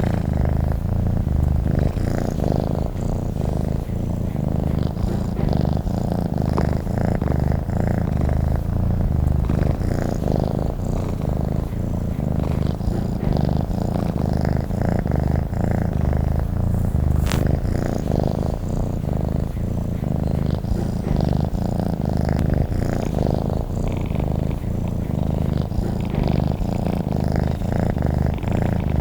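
Domestic cat purring continuously: a steady low, fine-pulsed rumble with gentle swells in loudness.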